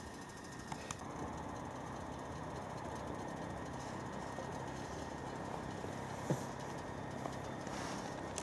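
Faint, steady low rumble of background noise, with a couple of light clicks about a second in and a sharper tap about six seconds in.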